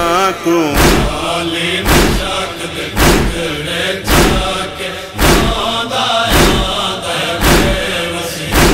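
A chorus of men chanting a noha refrain in unison, over steady rhythmic chest-beating (matam), one beat about every second.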